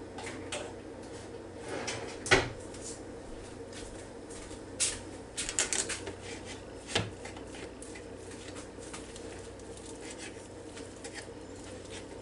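Kitchen knife tapping and clicking against a plastic cutting board as ham is cut into small pieces: a sharp knock about two seconds in, then a scattering of quicker clicks in the middle, over a steady faint hum.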